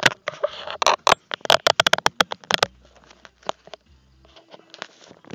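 Handling noise from a phone held right at its microphone: a fast run of clicks and knocks with rustling over the first two and a half seconds, then only a few scattered clicks.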